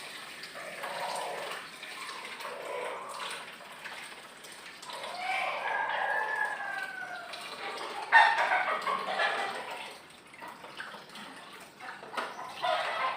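A rooster crowing, with a long call that rises and falls about five seconds in and louder calls around eight seconds and near the end. Water splashes faintly in a basin in between.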